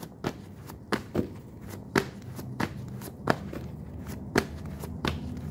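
A deck of tarot cards being shuffled by hand: a string of sharp card slaps and snaps at an uneven pace, about one every half second.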